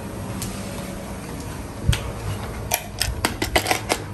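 A quick run of about ten sharp plastic clicks and knocks in the second half as a plug-in socket tester is pushed into a wall socket and the socket's switch is pressed, with a dull thump a little before, over a low steady hum.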